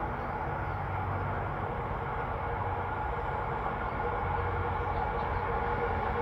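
Diesel locomotive approaching along the track, its engine drone growing slowly louder.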